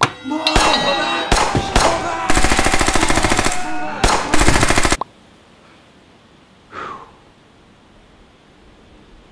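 Loud rapid machine-gun fire and shots, with other pitched sounds mixed in, cutting off suddenly about five seconds in. After that there is only a faint hiss, broken by one brief voice-like sound about seven seconds in.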